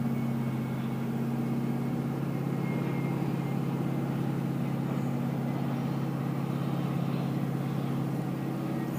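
A steady low hum of unchanging pitch.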